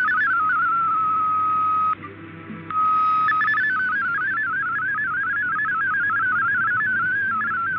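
MFSK32 digital-mode data signal received from a shortwave broadcast: a fast warbling of single tones hopping between pitches. It settles on one steady tone, drops out briefly about two seconds in, comes back as a steady tone, and the rapid warbling resumes about a second later.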